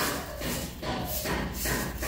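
A coconut-leaf-rib stick broom sweeping dry leaves across grass, in repeated swishing strokes about two or three a second.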